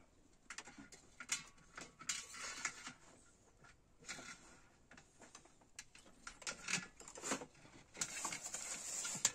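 Irregular light knocks, clicks and rustling, with a steadier hiss in the last second or so.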